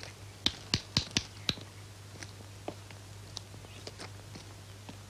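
Sharp small clicks and snaps of hand work: about five in quick succession near the start, then a few fainter ones spaced out. A steady low hum runs underneath.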